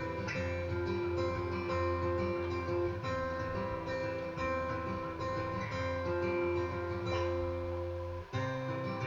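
Instrumental music led by acoustic guitar, with sustained notes over a held low note and no singing; it briefly drops near the end and moves to a new chord.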